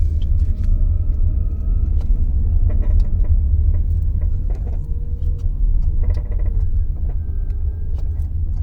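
Inside a Tata Nexon EV coasting on regen after the accelerator is let off: a string of short clicks, a "kat-kat-kat" clatter from the front centre of the car, over a steady low road rumble. The owner cannot say whether it comes from the motor or the suspension; the service centre's first test drive points to the suspension, such as a worn rubber bushing.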